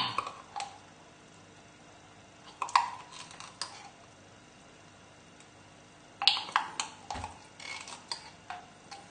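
A spoon clicking and knocking against dishes in scattered short groups, with quiet gaps between, as tablespoons of mustard are spooned into a mortar.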